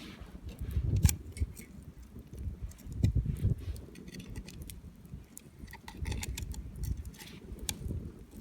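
Campfire crackling with scattered sharp pops, over an uneven low rumble with a couple of louder thumps.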